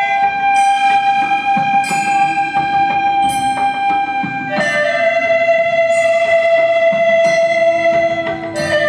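An ensemble of hulusi (Chinese gourd flutes) playing a slow melody in long held notes: one note held for about four and a half seconds, then a step down to a lower note held to the end. A plucked-string accompaniment strikes about once a second underneath.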